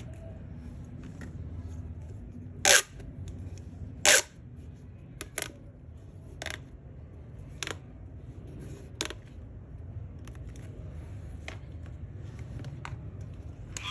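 Hands unboxing plastic toys and packaging: scattered sharp clicks and crackles over a low hum, with two louder snaps about three and four seconds in, then softer clicks roughly once a second.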